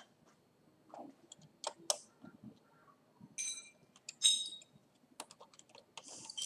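Small clicks and taps of a screwdriver against a Lenovo IdeaPad S410P laptop's plastic bottom cover as it is set into a screw, with two short metallic clinks about midway, the second the loudest.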